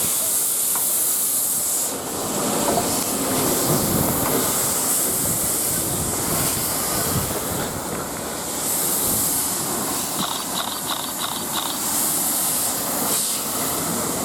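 Steam locomotive LNER A3 60103 Flying Scotsman hissing steam, with the hiss swelling every few seconds over continuous rumbling train noise, and a short run of light clicks near the end.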